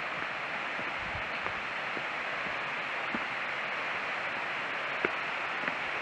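Steady hiss of rushing water in a mountain gorge, with a few light clicks of footsteps on a gravel-strewn concrete path.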